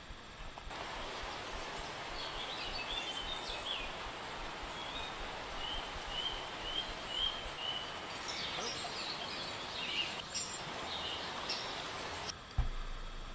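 Steady rush of river water, with birds chirping over it, including a run of about six short repeated notes midway. A brief low thump comes near the end.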